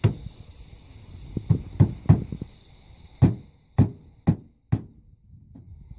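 Hammer driving flat-head roofing nails through a sheet-metal liner into the wooden floorboards of a manure spreader bed. There are about seven sharp strikes: three quick ones, a short pause, then four more about half a second apart.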